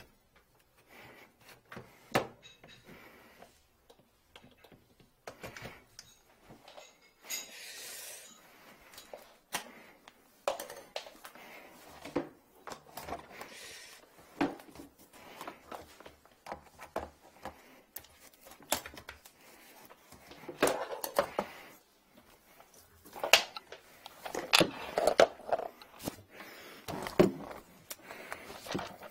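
Irregular knocks, clatter and rustling as a dish drainer, a vacuum hose and cloths are handled.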